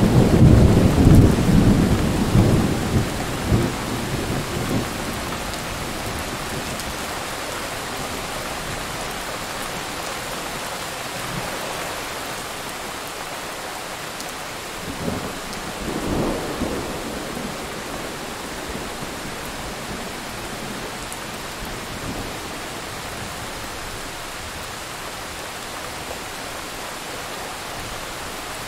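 Thunderstorm: a heavy rumble of thunder dies away over the first few seconds, over steady rain. About fifteen seconds in, a shorter, lighter roll of thunder comes twice in quick succession.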